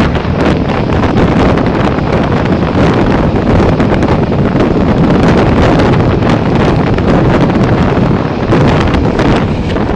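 Loud, steady rush of wind buffeting a microphone held out of the window of a fast-moving passenger train, mixed with the train's running noise on the track.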